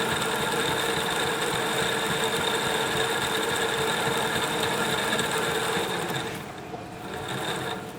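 CNC toroid winder running as it winds fine copper wire onto a toroid core: a steady motor whine with several held tones. It drops away about six seconds in, runs again briefly, and stops near the end as the winding finishes.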